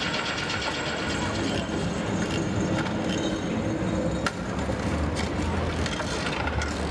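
Busy outdoor city ambience: a steady low rumble of traffic with people's voices murmuring, the rumble growing heavier over the second half.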